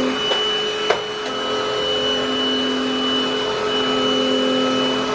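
Deerma VC20 Plus cordless handheld vacuum cleaner running steadily with a high whine, with two short clicks in the first second.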